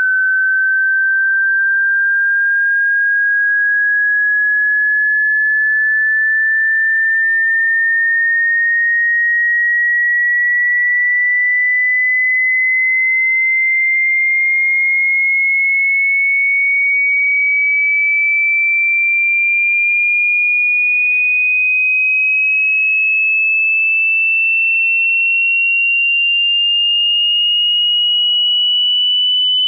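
A single pure electronic test tone gliding slowly and evenly upward in pitch, rising about an octave at a steady loudness: a hearing-test frequency sweep.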